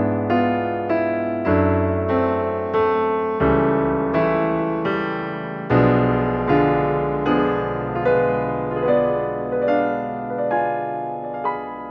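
Background piano music, a gentle melody of struck notes at an even pace of about two a second over changing bass notes.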